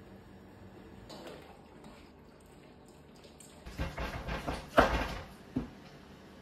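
Wooden spatula stirring and beating thick cassava starch paste in a metal frying pan on a gas hob. A run of scraping knocks begins a little over halfway in, with the loudest knock about three-quarters of the way through.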